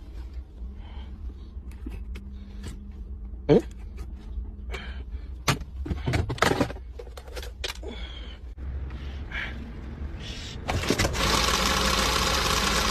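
Scattered clicks and knocks from handling the battery and its jumper-cable clamps. About eleven seconds in, a loud steady rushing noise starts and holds as the old Wuling's engine is started.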